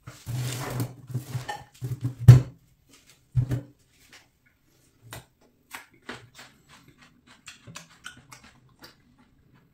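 Fork scraping and clinking on a ceramic bowl and plate, with a sharp clink about two seconds in and another a second later. Then come softer, irregular clicking mouth sounds of someone chewing meat.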